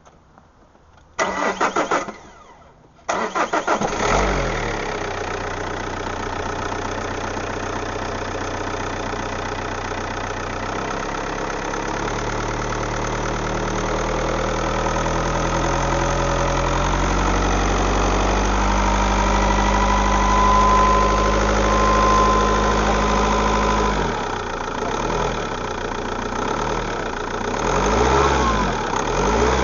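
Opel Vectra C turbo engine cranked by the starter in two bursts, catching about four seconds in and settling into a steady idle. A thin whistle is heard over the idle for a few seconds past the middle, which the owner takes for a turbo whistle. Near the end the engine speed rises and falls a few times.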